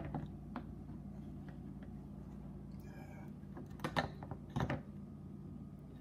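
Refrigerator door handle being fitted back over its mounting stud: a sharp click at the start, then a few light clicks and two short knocks about four and four and a half seconds in, over a steady low hum.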